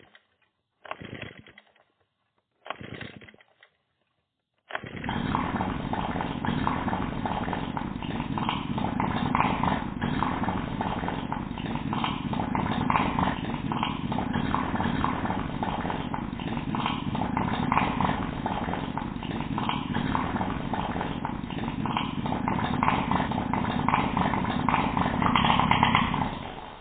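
Motorcycle engine giving three short bursts, then starting about five seconds in and running continuously, its loudness rising and falling a little, until it stops near the end.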